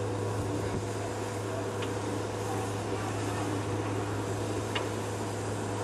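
Steady hiss and low hum of a 15-inch gauge steam locomotive, built by Guest in 1964, standing in steam on a hand-turned turntable. Two faint clicks come about two and five seconds in.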